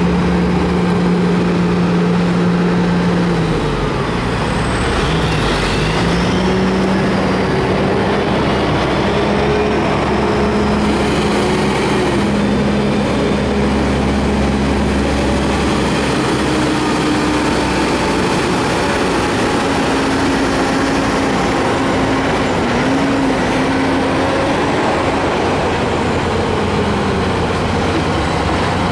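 Heavy diesel trucks of a gas-drilling convoy (frack, sand and water trucks) rolling slowly past close by, their engines running in a loud, steady drone. The engine note drops and rises again a few seconds in and shifts now and then as the trucks move up.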